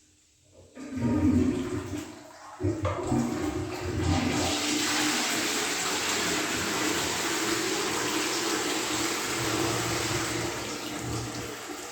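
Electric hand dryer blowing: a rush of air that starts, cuts out briefly, then restarts and runs steadily with a low motor tone before easing off near the end.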